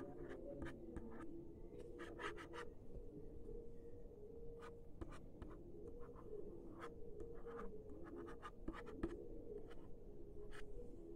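Plastic stylus scratching and ticking across the pressure-sensitive screen of an LCD writing tablet, faint and in short irregular strokes as letters are written.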